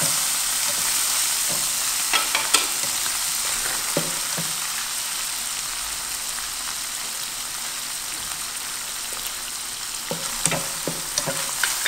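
Minced meat frying in oil in a nonstick frying pan: a steady sizzle, with a few short scrapes and taps of a spatula stirring it about two seconds in and again near the end.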